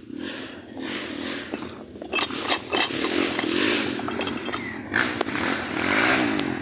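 Small motorcycle engine revving up and down over and over, with sharp knocks and rattles about two to three seconds in.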